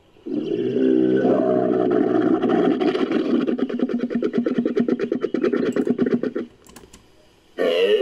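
Made-up Bramatherium call built from camel, moose and bull recordings: one long, rapidly pulsing bellow of about six seconds, then a second, smoother bellow beginning near the end.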